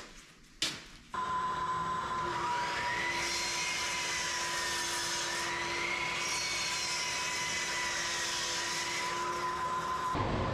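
Sliding compound miter saw motor starting about a second in and running steadily with a high whine while it cuts through an oak board. The pitch of the whine wavers up and down under the load of the cut. Short knocks from the board being set on the saw come first, and the whine stops shortly before the end, leaving a lower rumble.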